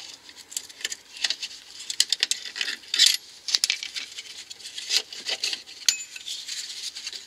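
Plastic cover on a Peugeot 206's front lower suspension arm being unclipped and pulled off by a gloved hand: a run of irregular small clicks, taps and scrapes.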